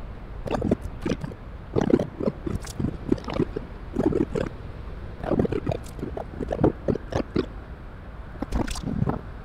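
Creature voices speaking an alien language in short, broken phrases with sharp clicks: a human voice turned into monster speech in real time by the Dehumaniser voice processor.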